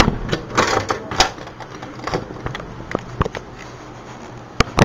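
Handling noise: irregular clicks, knocks and light scrapes, several within a few seconds, over a low steady hum.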